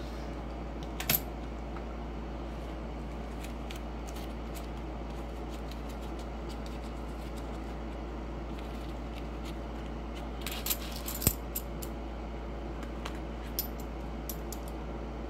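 Half-dollar coins clinking as a paper coin roll is opened and the stack handled in the hand. There is one sharp clink about a second in, a cluster of clinks about two-thirds of the way through, and a few light ticks near the end.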